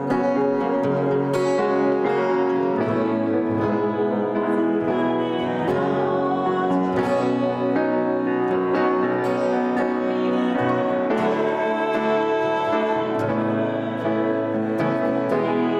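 Acoustic guitar and grand piano playing a song together live.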